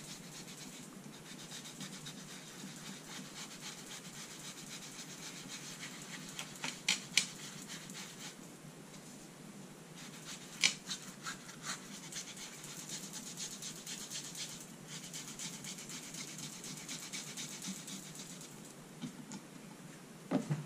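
Gilding flakes being burnished by hand onto a card on a glass craft mat: fast, continuous rubbing and brushing strokes. A few sharp clicks come about seven and eleven seconds in.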